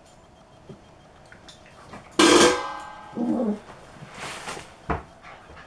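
Border collie puppies play-fighting. One loud, sharp puppy yelp comes about two seconds in, followed by a shorter, lower cry that drops in pitch. Then there is a brief burst of rustling and a single knock near the end.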